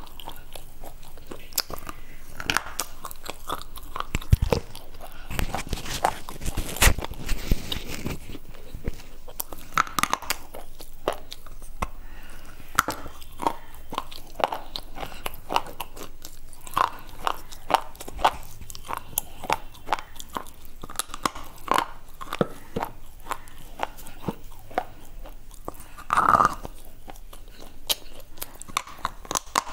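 Close-miked crunching and chewing of a white slate bar: repeated crisp bites and grinding chews, with a dense run of loud crunches about five to eight seconds in and another loud bite near the end.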